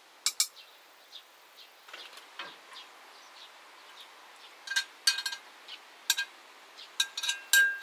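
Irregular sharp clicks and clinks of hard objects, coming faster in the second half, a few with a short metallic ring, the loudest near the end, over a faint steady hiss.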